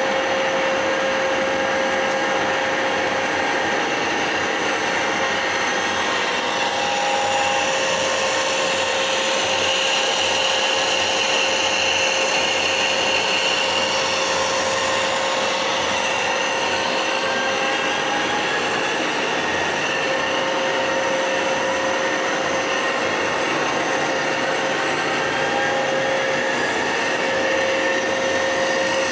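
A machine running steadily, its continuous mechanical noise carrying an even, unchanging whine.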